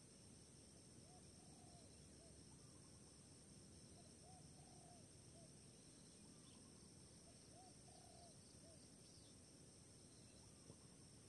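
Spotted dove cooing faintly: three alike phrases about three seconds apart, each a short note, a longer wavering note and a short closing note. A steady high insect drone runs behind.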